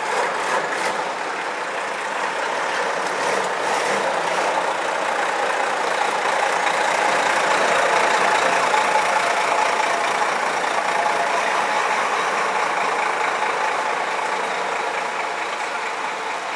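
Vintage buses driving past, a red Routemaster double-decker among them, their engines running steadily and loudest about halfway through as the double-decker goes by.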